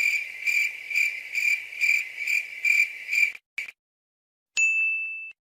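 Cricket-chirp sound effect: a steady high chirping that pulses about three times a second and cuts off abruptly. About a second later comes a single short, high ding.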